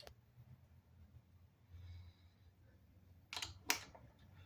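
Two short, sharp clicks close together about three and a half seconds in, from handling the eBike's rear-axle hardware, over a faint low room hum.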